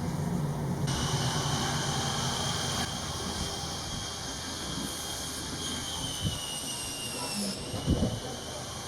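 A high metallic power-tool whine starts about a second in, sinks slightly in pitch and cuts off near the end: metalwork on the steel firebox of a wood-fired gudeul heating system, which is being welded. A low steady hum lies underneath at first, and a couple of thumps come near the end.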